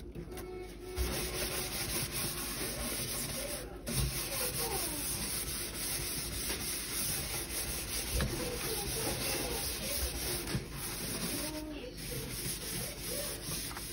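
Mesh scouring pad and hands scrubbing a stainless steel sink coated in wet cleanser powder paste: a steady gritty rubbing that pauses briefly twice.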